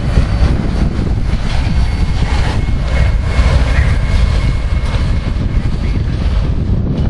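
Steady low rumble of a CSX freight train of autorack cars rolling past and away, mixed with wind buffeting the microphone.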